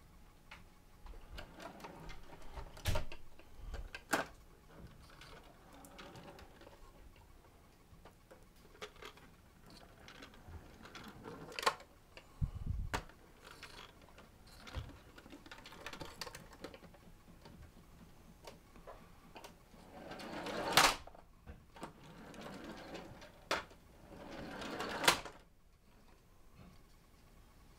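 Plastic toy fire engine's spring motor whirring and ratcheting as it is pushed along, with scattered sharp clicks and knocks of plastic; twice in the last third a whir builds up and ends in a loud knock.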